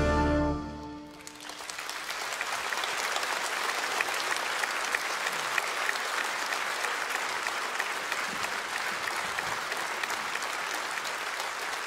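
A wind band's final held chord dies away in the first second, then a theatre audience applauds steadily.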